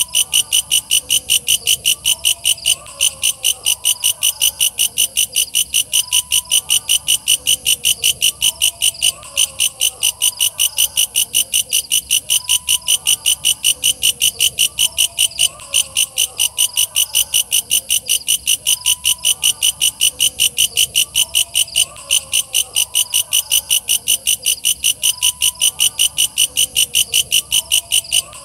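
Walang kecek katydid calling in a fast, steady run of shrill chirps at about four a second, with a few brief breaks. A fainter chorus of lower calls, likely frogs, goes on underneath.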